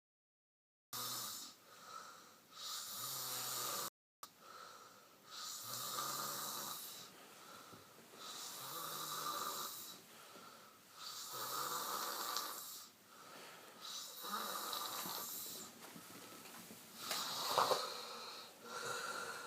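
A man snoring loudly in a steady rhythm: a rasping snore with a low buzzing pitch under it, roughly every three seconds. One sharper, louder snore comes near the end.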